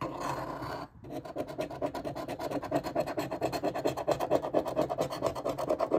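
A large metal coin scratching the coating off a scratch-off lottery ticket in rapid back-and-forth strokes, with a brief pause about a second in.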